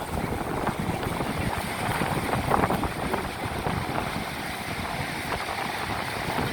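Wind buffeting the microphone over the wash of sea waves, a steady rough noise with irregular low rumbles.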